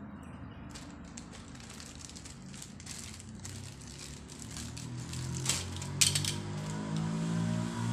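Clear plastic packaging crinkling and rustling as toilet cistern flush-valve fittings are unwrapped by hand, with light clicks of small plastic parts. Two sharp clicks come about five and a half and six seconds in, as the parts are handled and set down on the tile floor.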